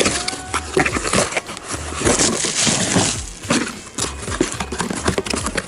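Packaging being handled and opened: rustling and crinkling with many sharp knocks and clicks, and light clinks of small metal parts.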